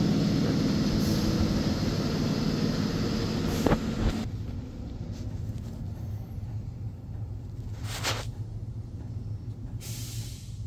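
A steady mechanical hum with a low drone, which cuts off abruptly about four seconds in. Then quieter room noise with two short brushing sounds as blue layout fluid is dabbed onto a cylinder-head valve seat.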